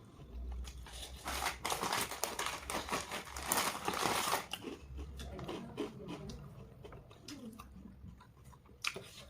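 Close-up crunching and chewing of crispy fried chicken, a dense crackle of bites for a few seconds, then lighter chewing.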